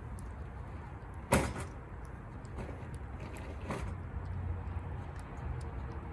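A cat licking and eating wet canned food, with faint wet clicks, over a steady low traffic rumble. A short sharp noise comes about a second in, and a weaker one near four seconds.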